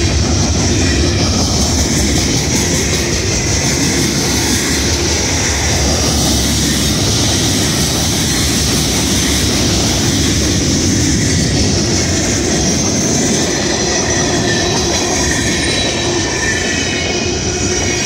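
Freight train cars rolling past at close range: a steady, loud rumble and rattle of steel wheels on rail.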